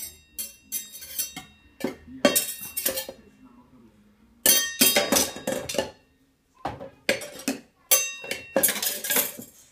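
A toddler banging a wire whisk and wooden spoon on enamel pots and dishes in an open dishwasher: irregular clattering metallic strikes that ring on, in quick bunches with short pauses about four and six seconds in.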